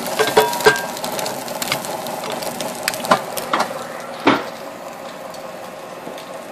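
Sandwich frying in a pan, a steady sizzle with scattered clicks and scrapes.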